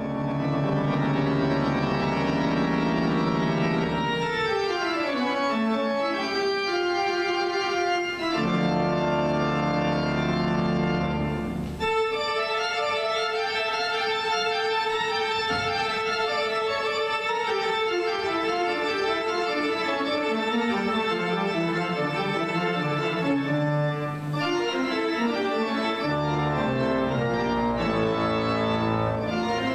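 Organ music: slow sustained chords with stepwise falling lines in the lower voices, and a long held note through the middle.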